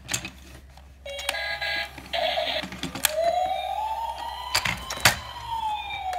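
Electronic toy fire truck's built-in sound effects: a couple of short electronic tone sequences, then a slow siren wail that rises and falls, with a few sharp plastic clicks and knocks as the toy is handled and switched on.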